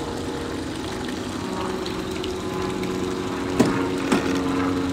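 Mercury four-stroke outboard motor idling steadily, a low even hum. Two short knocks sound about half a second apart near the end.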